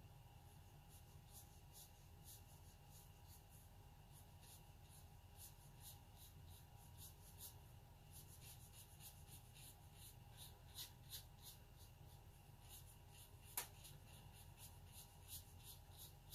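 Faint, short scratchy strokes of a fine watercolour brush dabbed and dragged over Arches 140 lb watercolour paper, coming thicker in the second half, with one sharper tick about two-thirds of the way through, over a steady low hum.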